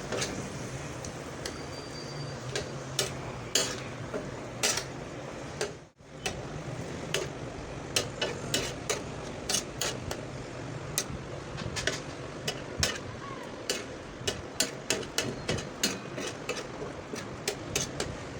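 A metal spatula stirring chicken in yogurt masala on a tawa, with repeated irregular clacks and scrapes against the pan over a steady sizzle as the yogurt cooks down.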